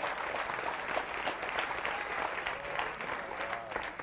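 Studio audience applauding steadily, a dense patter of many hands clapping, with a few voices calling out over it.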